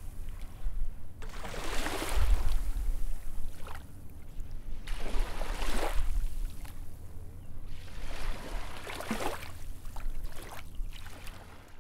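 Sea waves washing in and drawing back, a swell every two seconds or so, over a steady low rumble.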